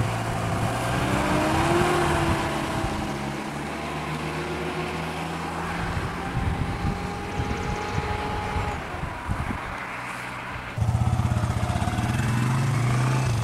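Road vehicle engines running and idling close by, a steady engine hum. The sound shifts abruptly to a different, louder engine hum about eleven seconds in.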